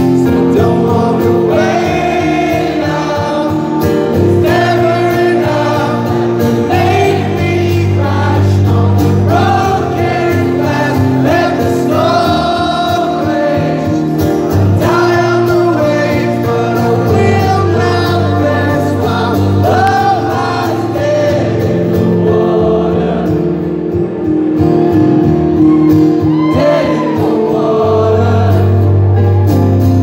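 Live song performance: a male voice sings a melody over strummed acoustic guitar, amplified through a concert PA.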